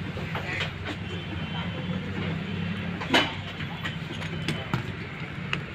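Light metal clinks from handling a car starter motor's end cap and bolts, with one sharp clink about three seconds in, over a steady low machine hum.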